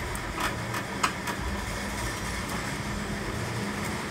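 A few light clicks and taps of a small metal engine part being handled and pushed into place by hand, mostly in the first second and a half, over a steady low background hum.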